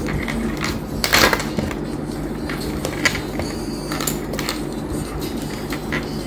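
Plastic clicks and scraping as the housing of a neckband earphone is handled and pressed together, with a louder crackle about a second in, over a steady low hum.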